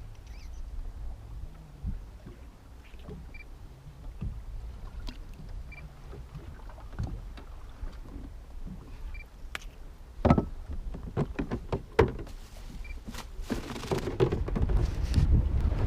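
Small fishing boat on the lake: a steady low rumble of wind and water with scattered small knocks of gear against the hull, and two louder sharp knocks about two-thirds of the way through.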